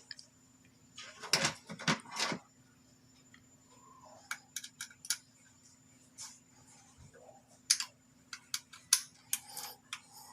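The plastic parts of a Freewolf X8 being handled and taken apart by hand: irregular clicks and rattles, with a dense cluster about a second in and scattered single clicks after that.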